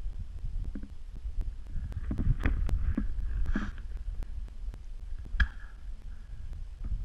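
Uneven low rumbling and thumping of wind and handling on the microphone, with scattered clicks and a sharper knock about five seconds in.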